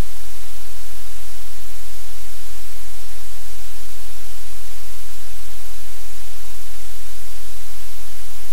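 Loud, steady hiss like static noise, even and unchanging, with no other sound standing out.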